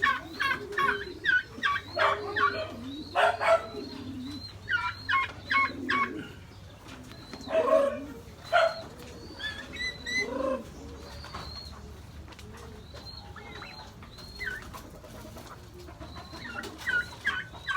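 Birds calling: doves cooing low under many quick high chirps. The chirping is busiest in the first half and thins out later.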